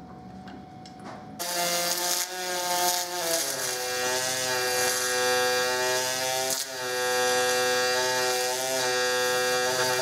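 Pulse MIG welding arc on aluminium, starting about a second and a half in and buzzing steadily at a pitched drone. The pitch of the buzz shifts in steps a few times as the synergic welding parameters are changed during the weld.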